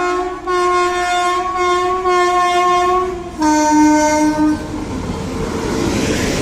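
Locomotive horn of the Trivandrum Mail sounding a long multi-tone blast, breaking briefly about three seconds in and sounding again on a lower note. Then the loud rush and rumble of the train passing close by.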